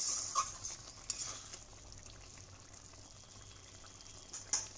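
A thick ridge gourd and potato poppy-seed curry simmering in a pan over a gas flame, with a soft steady bubbling sizzle. A spoon clinks on the pan at the start with a few stirring scrapes in the first second, and knocks once more near the end.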